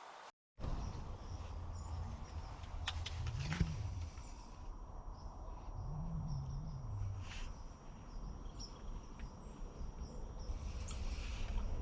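Outdoor ambience: a steady high insect drone with scattered short bird chirps over a continuous low rumble that swells twice, with a few sharp clicks.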